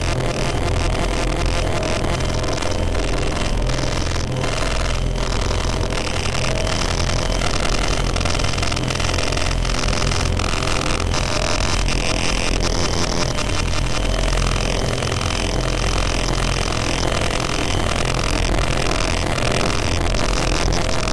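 Harsh noise / power-electronics music from a SunVox modular synth patch built on feedback and distortion modules. A dense, loud wall of distorted noise over a heavy, pulsing low drone runs without a break, its grainy texture shifting as the patch is adjusted.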